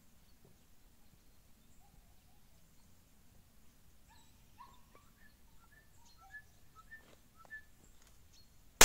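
Quiet open-air stillness with a few faint short chirping calls, then a single shotgun shot near the end, by far the loudest sound, with a long echoing tail.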